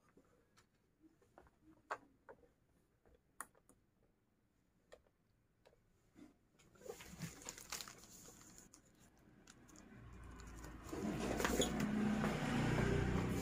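Scattered faint clicks and taps of small objects being handled on an electronics workbench, then a rustling handling noise that grows louder over the last few seconds.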